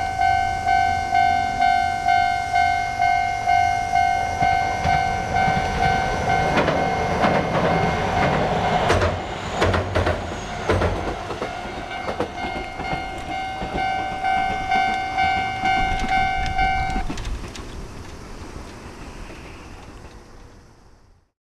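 Railway level-crossing warning bell ringing at about two strikes a second while a train passes, its wheels clacking over the rail joints for several seconds. About 17 seconds in, the bell stops and the train's sound fades away.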